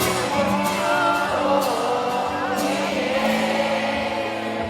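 Live amplified pop music: a singing voice over sustained band accompaniment with occasional drum hits.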